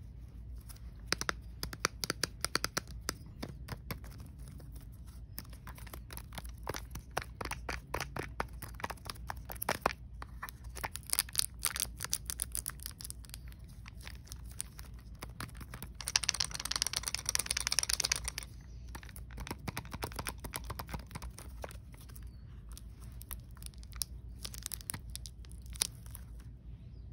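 Clear plastic wrap on a small blind-box toy package crinkling and crackling as fingers pick and peel at it, in many short irregular crackles. A longer, louder tearing rustle comes about two thirds of the way through.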